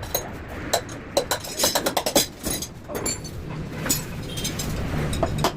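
Metal tools and parts clinking and tapping in quick, irregular knocks. A low steady hum comes in about three and a half seconds in.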